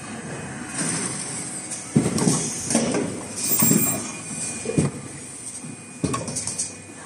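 Automatic N95 cup mask production machine running, with clattering, several loud irregular knocks from its moving fixtures and short hisses.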